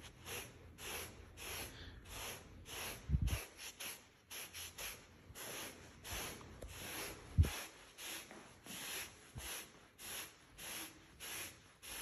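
Microfiber cloth rubbing back and forth over pool table felt in short strokes, about two a second, wiping off freshly sprayed felt cleaner. Two low thumps break in, about three and seven seconds in, the second one the loudest sound.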